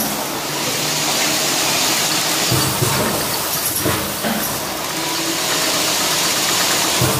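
Cup-filling machine running: a steady hiss with mechanical clatter, and a few heavier knocks.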